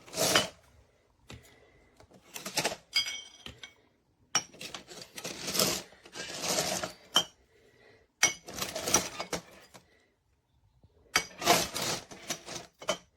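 Drink cans clinking and rattling in a fridge can dispenser organizer as they are handled and rolled along its rows, in about five separate bursts of clatter.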